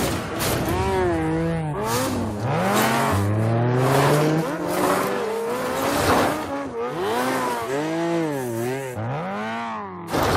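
Sport motorcycle engines revving hard and easing off again and again as a film motorcycle chase's soundtrack: long climbing revs and quick rising-and-falling swoops in pitch. A few sudden sharp noises are heard between them.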